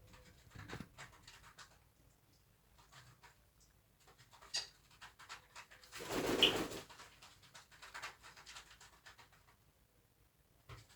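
African grey parrot making soft clicks and small mutterings, with one louder noisy sound lasting under a second about six seconds in.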